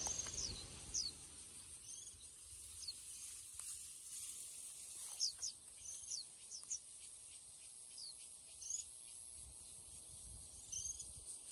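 Small birds giving short, high-pitched chirps, one every second or so, over a steady high hiss.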